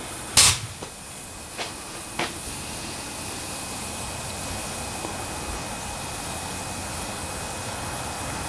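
Steam hissing steadily from a newly built vertical fire-tube boiler under pressure. There is a short, loud burst about half a second in and two fainter ones around two seconds.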